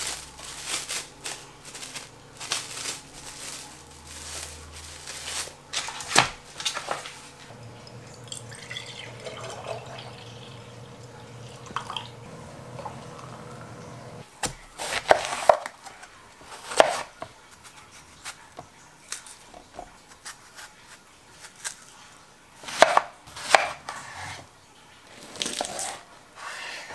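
Kitchen prep sounds: knocks and clatter of things handled and set down on a wooden cutting board, liquid poured from a carton, and near the end a large knife cutting down through a muffin onto the board in a few sharp strokes.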